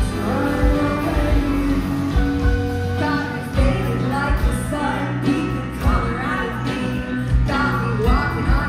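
A live rock band playing a song: a woman singing over electric guitar, bass guitar, keyboard and a steady drum beat.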